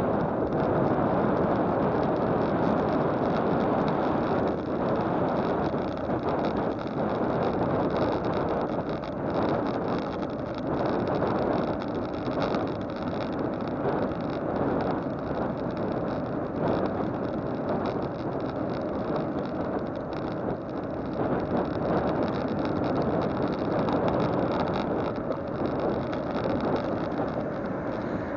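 Steady rushing wind and road noise on a camera travelling along a road, with many faint knocks and jolts running through it and no clear engine note.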